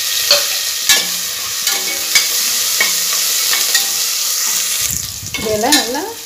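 Chopped garlic, ginger and green chilli sizzling in hot oil in a steel pressure cooker, stirred with a metal ladle that scrapes and clicks against the pot about once a second. The sizzle eases near the end.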